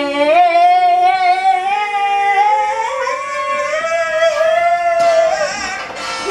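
Singing in a Latin dance song. A singer holds one long wavering note for about five seconds, slowly rising in pitch, then moves into shorter phrases near the end.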